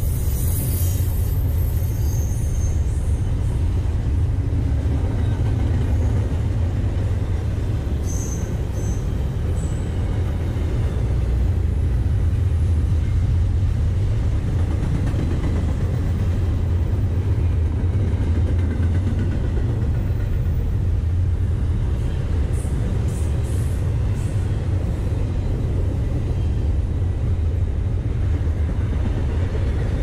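Norfolk Southern double-stack intermodal freight train rolling past at close range: a steady, deep rumble of steel wheels on rail and of the well cars going by.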